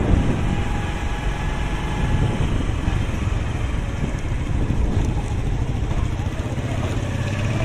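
Steady engine and road noise of a vehicle on the move, a dense low rumble with buffeting, from a camera riding along a street.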